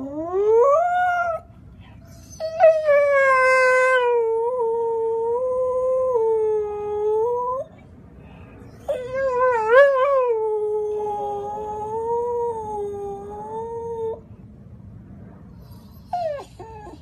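Samoyed howling: a short rising howl, then two long, slightly wavering howls of about five seconds each.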